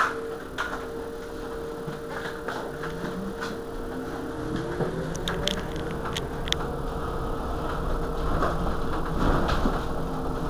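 Irizar i2e electric bus standing at a stop, humming steadily over street noise. A whine rises in pitch a few seconds in, and a few sharp clicks follow about five to six seconds in.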